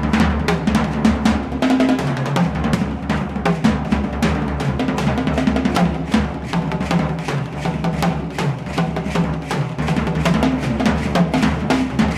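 Background music: a fast, steady drum-kit beat over a moving bass line.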